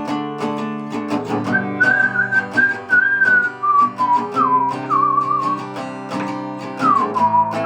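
A whistled melody over a strummed acoustic guitar, in an instrumental passage of a song. The whistled tune rises about a second and a half in, then wavers and slides between notes.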